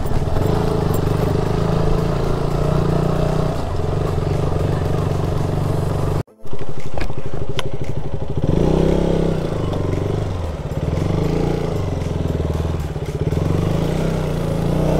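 KTM Duke motorcycle's single-cylinder engine running while riding, its pitch rising and falling with the throttle. The sound cuts out for an instant about six seconds in.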